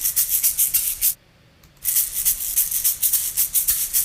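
Recorded egg shaker sample played back: a fast run of hissy shakes, about eight a second, that stops a little over a second in and starts again after a short gap, as the trimmed, faded and normalized sample plays through once more.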